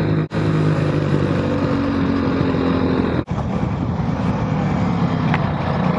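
Motorcycle engine running at a steady pull under way, with wind rushing over the microphone. The sound cuts out for an instant twice.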